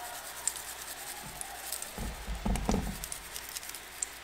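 Spice shaker shaken over raw fish fillets, the seasoning granules pattering lightly onto the fish, with a few dull knocks about halfway through.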